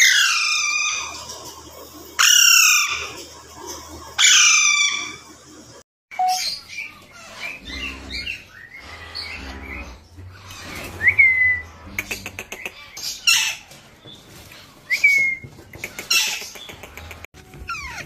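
Alexandrine parakeets screeching: three loud calls, each falling steeply in pitch, about two seconds apart. After a break comes a busier stretch of shorter squawks and chirps from several birds.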